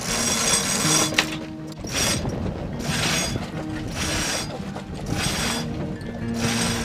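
Sailboat mainsail being hoisted at the mast: the halyard is hauled in repeated pulls about once a second, the line running through its blocks.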